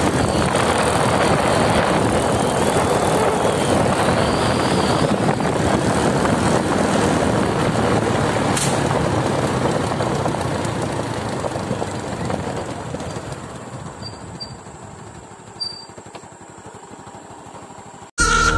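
Motorcycle engine and wind rushing over the microphone while riding, a steady loud rush that dies away gradually after about ten seconds and then cuts off suddenly near the end.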